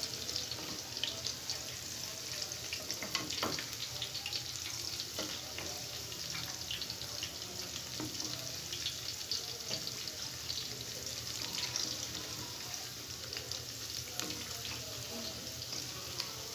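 Pakoras (gram-flour batter fritters) deep-frying in hot oil in a steel pot: a steady sizzle full of small crackling pops. A wooden spatula turning them gives a few sharp clicks and knocks.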